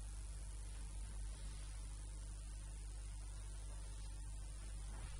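Steady electrical mains hum with an even hiss over it.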